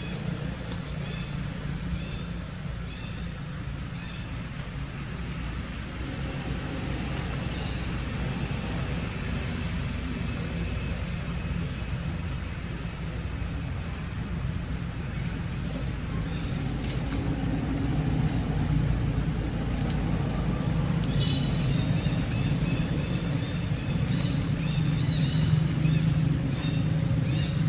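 Steady low engine rumble of vehicle traffic, growing louder in the second half. Faint short high chirps come in over it near the end.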